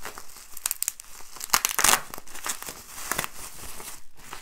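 Plastic bubble wrap crinkling and tearing as a tightly wrapped parcel is pulled open by hand, in irregular crackles with a louder stretch about one and a half to two seconds in.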